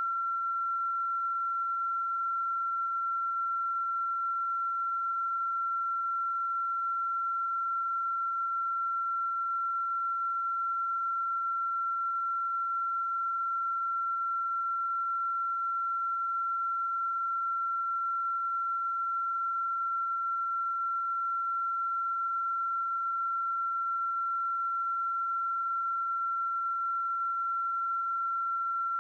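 A steady high-pitched tone held on one unchanging pitch, with fainter higher tones above it, like an electronic whine or test tone.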